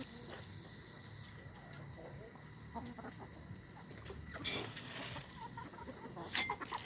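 Chickens clucking softly off and on, with a couple of brief scuffing noises about four and a half and six and a half seconds in.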